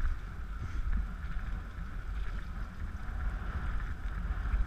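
Steady rolling rumble of a dog-pulled rig's wheels on a rough path, with wind on the microphone.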